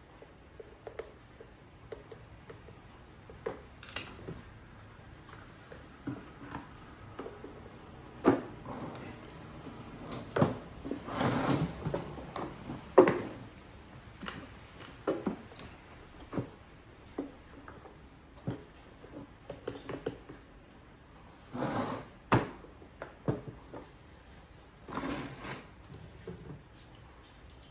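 Irregular knocks, clicks and handling noises of plastic parts being fitted together as a pressure washer's hose reel is reassembled. A few longer, noisier handling sounds come about a third of the way in and twice near the end.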